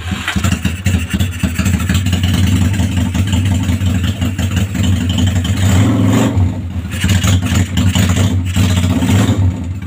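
Suzuki Steed 400's V-twin engine, just started and running at a steady, slightly uneven idle, which the mechanic says needs only tuning.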